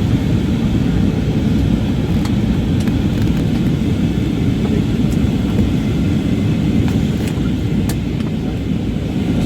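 Steady low rumble of jet airliner cabin noise in flight, engines and airflow, with a few faint clicks.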